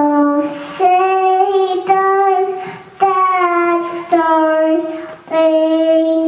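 A small girl singing into a handheld microphone: a slow tune of long held notes, each about a second long, the pitch stepping up and down from note to note.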